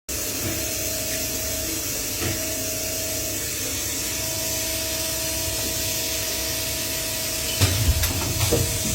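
CNC machine running in a machining shop: a steady hiss with a faint steady whine, and a few low knocks near the end.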